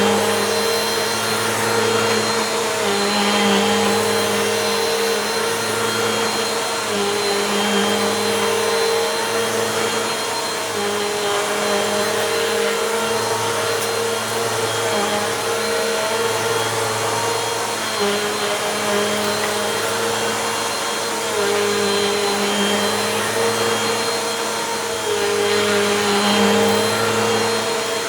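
Bissell Compact vacuum cleaner running on a rug, its motor tone shifting slightly every few seconds as the head is pushed back and forth in passes, picking up crunchy dirt.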